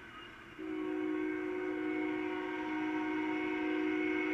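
Union Pacific locomotive's Nathan K5HL five-chime air horn sounding one long, steady blast of several notes at once, starting about half a second in. It is heard through a computer's speakers from a live webcam stream.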